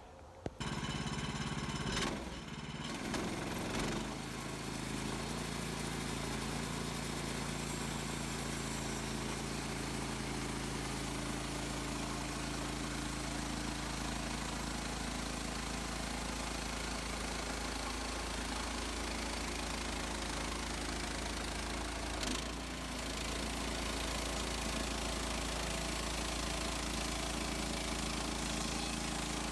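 Gas engine of a Woodland Mills HM130 Max portable bandsaw mill starting up, with a knock about two seconds in, then running at a steady speed. There is another brief knock and dip about two-thirds of the way through.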